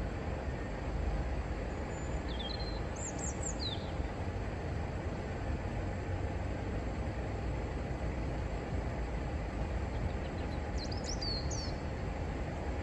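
Steady low rumbling background noise, with two short bursts of high chirps, like a small bird calling, about three seconds and eleven seconds in.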